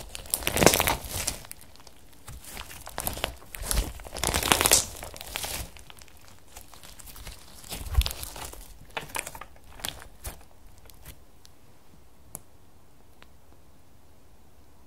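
Hands squeezing and stretching a clear slime with glitter and small beads mixed in: irregular wet crackling and squishing, densest over the first six seconds, then sparser clicks and one sharper squelch about eight seconds in, dying away a few seconds before the end.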